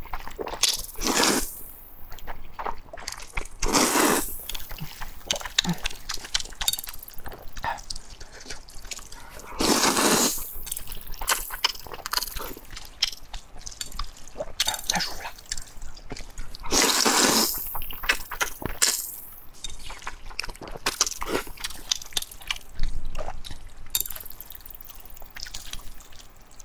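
Close-miked slurping of thick wheat noodles in mushroom-and-pork sauce: several long, loud slurps spread through, with quieter wet chewing and small clicks between them.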